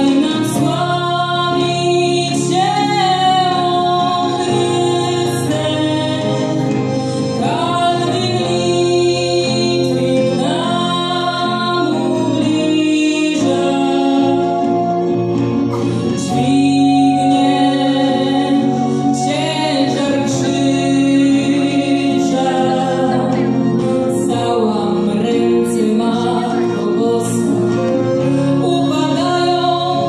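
A folk band playing a Polish song: several voices singing together over accordion, acoustic guitar and a brass horn, with a steady, continuous accompaniment.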